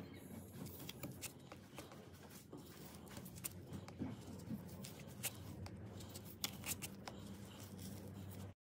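Small pointed carving tool scratching and gouging into the painted wooden Mokulito plate: a run of short scrapes and clicks over a steady low hum. The sound cuts off just before the end.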